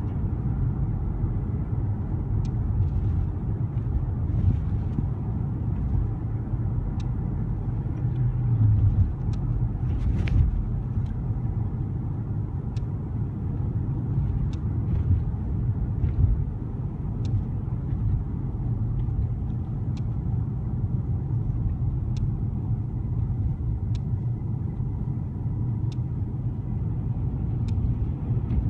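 Car cabin interior while driving with the windows closed: a steady low rumble of engine and road noise, swelling briefly about a third of the way in. Faint small ticks come every second or two.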